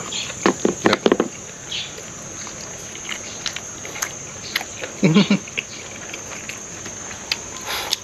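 A man eating a mouthful of grilled beef dipped in chilli sauce: soft chewing and mouth clicks, with a few short voiced mouth sounds near the start and a brief murmur about five seconds in. A steady high-pitched insect drone runs underneath.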